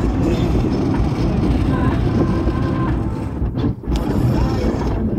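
Road and wind noise of a car driving at highway speed, a steady low rush with a brief dip about three and a half seconds in.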